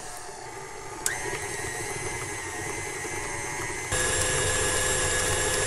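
Electric tilt-head stand mixer switched on with a click about a second in, its motor whining up to speed and running steadily as the flat beater creams softened butter and peanut butter in the steel bowl. It is louder near the end.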